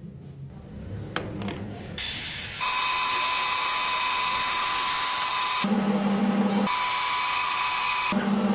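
A lathe running: a steady high whine starts about two and a half seconds in, and twice shifts to a lower hum for a second or two.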